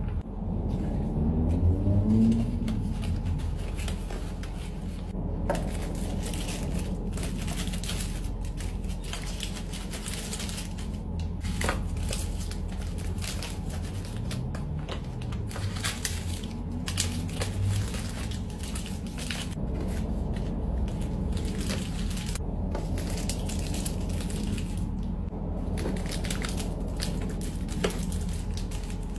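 Plastic snack and chocolate-bar wrappers crinkling and rustling in irregular bursts as the packets are handled and packed into a basket.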